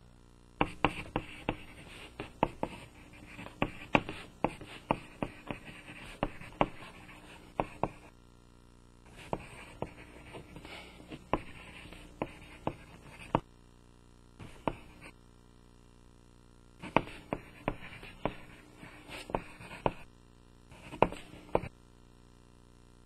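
Pen writing on paper: runs of scratchy strokes with sharp ticks. There are five runs of writing, the first the longest at about seven seconds, with short pauses between words.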